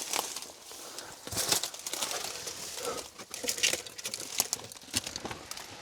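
Someone scrambling up through a gap in the rocks: irregular scuffs, scrapes and crunches of hiking boots and hands on rock, with clothing rustling.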